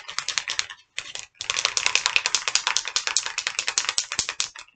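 Aerosol can of marble-effect spray paint being shaken hard, its mixing ball rattling in fast clicks. The rattle breaks off briefly twice about a second in, then runs on and stops near the end.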